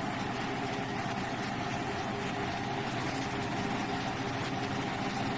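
Bhatura deep-frying in hot oil: a steady sizzle, with a steady low hum underneath.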